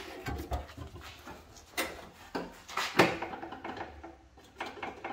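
Hand work on car parts: scraping and rattling as a piece is worked loose or into place, with several sharp knocks, the loudest about three seconds in.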